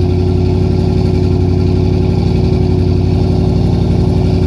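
2005 Ford Mustang GT's V8 idling steadily shortly after a cold start, heard through a Pypes off-road H-pipe and Pypes Violator axle-back mufflers. The pitch and level stay even, with no revving.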